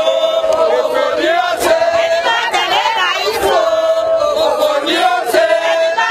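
A crowd of women protesters singing and chanting together, their voices holding long notes in unison.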